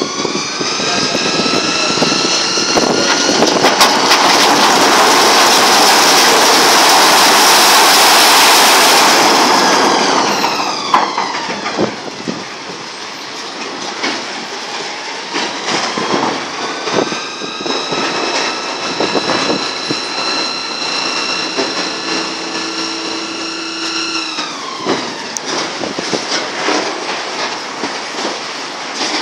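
Terex TA30 articulated dump truck tipping a load of rock: the diesel engine revs up as the body rises and the rock slides out with a loud rushing rumble for several seconds. The engine then revs up again, holds steady and drops back about 25 seconds in, while the truck moves off and the body comes down, with scattered knocks and clanks.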